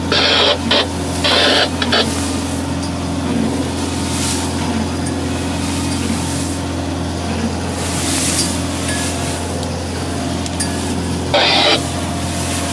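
The diesel engine of a small 25 ft trawler running steadily under way, a constant low drone. Brief bursts of hiss near the start and again about 11 seconds in.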